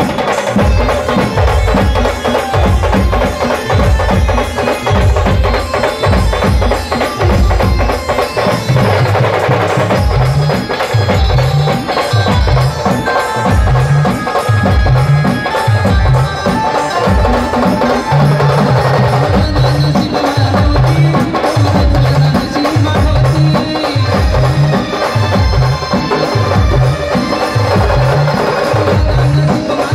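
A village street band playing a Marathi folk tune, loud, with a heavy drum beat under a melody line that continues without a break.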